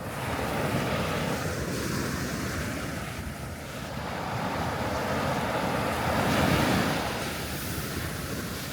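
Sea waves breaking and washing up on a sandy beach, a continuous rushing surf that swells loudest about six seconds in, with some wind on the microphone.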